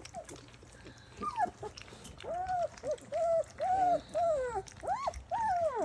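Great Dane whining: a run of about eight short whines, each rising and falling in pitch, starting about two seconds in, with the last few pitched higher.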